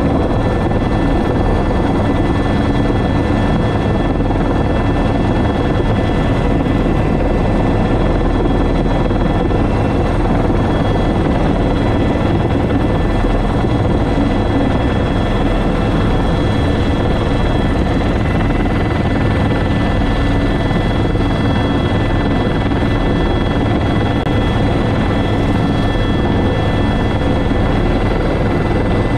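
Airbus H125 (AS350 B3) single-turbine helicopter heard from inside its cockpit in flight: the main rotor and turbine running steadily, with a steady high whine over a low rumble.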